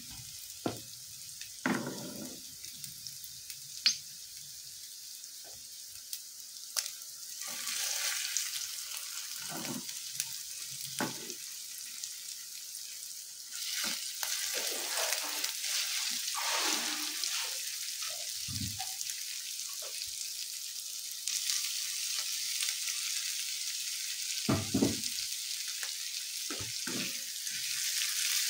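Tofu cubes, shallots and garlic sizzling in oil in a nonstick wok, stirred with a silicone spatula that scrapes and knocks against the pan now and then. The sizzle grows louder about halfway through and again near the end.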